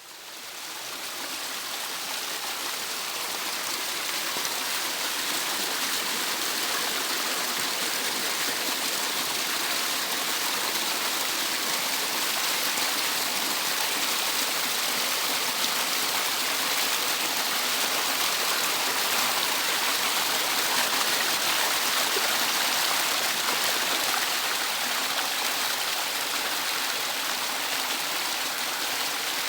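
Water pouring down a small cascade into a stream, a steady rushing hiss that fades in over the first few seconds.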